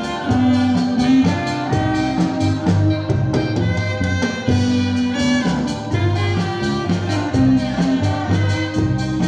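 Kuratsa dance music with a steady beat and a strong bass line, played loud over a mobile sound system.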